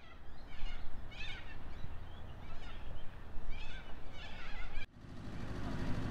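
Birds calling outdoors, several short clusters of chirps over a low rumble of background noise. About five seconds in, the sound cuts to a steady low hum.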